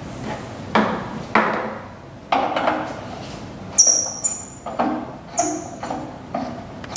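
Handling noise from the parts of a Dick SM-111 knife-sharpening machine, as a tool holder is taken off and an aluminium clamp with a dressing rod is fitted to the grinder: three dull knocks, then from about four seconds in a string of short, high, ringing metal clinks.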